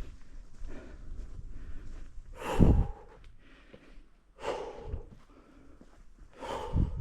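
A person breathing hard while climbing a steep hillside path, with three heavy exhalations about two seconds apart.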